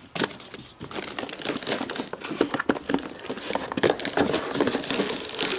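Packaging being crumpled and handled: a dense, irregular run of crinkling and rustling.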